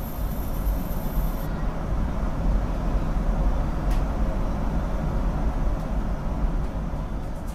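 Street traffic noise: cars and scooters passing, with a heavy low rumble.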